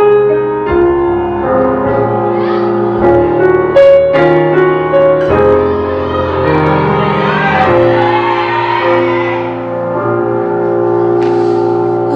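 Background music: a slow piano passage of held chords and melody notes.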